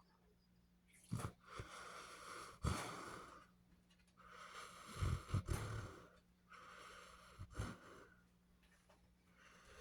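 Basset hound snoring in its sleep: three long, noisy breaths of about two seconds each, with a few short, sharper snorts between them.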